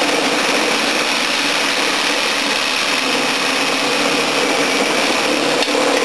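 A power saw running steadily as its blade cuts through an air-conditioner radiator's aluminium fins.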